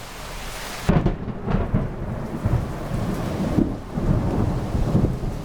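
Thunder from a nearby positive lightning strike over steady rain. It breaks in sharply about a second in, then cracks and rumbles with several loud claps; the crack-like character is typical of positive strikes.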